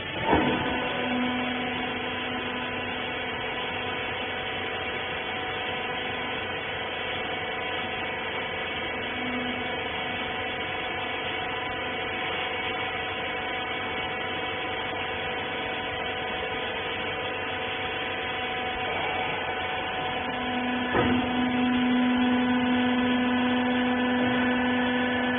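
Hydraulic rag baler's electric motor and pump running with a steady hum, with a clunk just after the start and another about 21 seconds in, after which the hum is louder.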